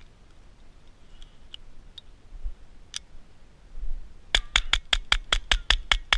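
Distant gunfire: one shot, then a rapid even string of about ten shots, about five a second.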